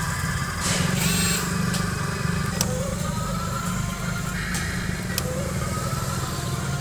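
RC excavator running: a steady, pulsing engine-like rumble with a few short rising whines.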